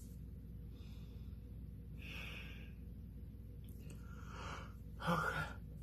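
A person's breaths: four short, noisy breaths spread over a few seconds, the last one, near the end, the loudest, with a little voice in it like a sigh.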